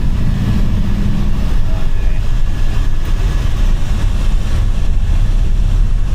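Steady low rumble of a vehicle in motion, with a low hum that fades about one and a half seconds in.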